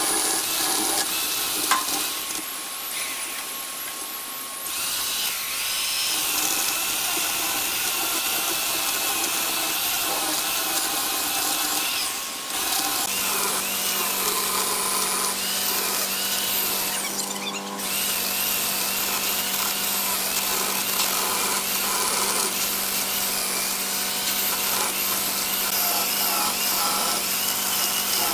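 Corded electric chainsaw cutting through a thick wood panel, running steadily and easing off briefly a few times: once for a couple of seconds early on the way in, and again for a moment around the middle.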